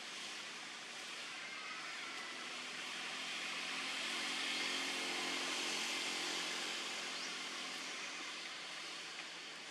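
Distant engine hum that swells to its loudest about halfway through and then fades, over a steady outdoor hiss.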